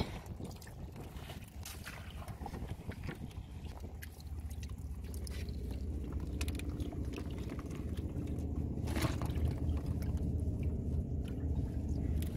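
Live prawns flicking and splashing in shallow water on the bottom boards of a wooden boat, with scattered small clicks and knocks over a steady low rumble. A knock comes right at the start and a louder splash or knock about nine seconds in.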